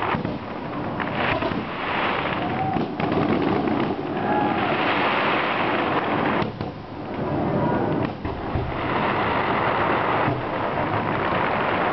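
Fireworks display: repeated sharp bangs over a dense, continuous crackling hiss of bursting shells.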